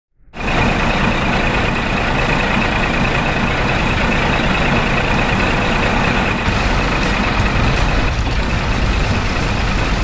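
A truck engine running steadily, with a constant high whine over a low rumble, starting abruptly just after the start.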